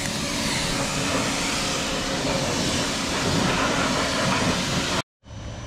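Water spraying onto a car being washed: a steady, loud hiss that cuts off abruptly about five seconds in.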